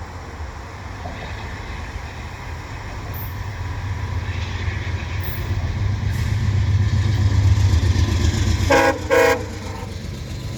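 Via Rail P42DC diesel locomotive's rumble growing louder as it accelerates with its train, then its horn giving two short blasts close together about nine seconds in.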